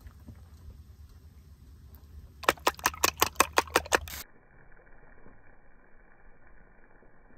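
A fork beating eggs in a bowl: a quick run of about ten sharp clicks, roughly six a second, lasting about a second and a half.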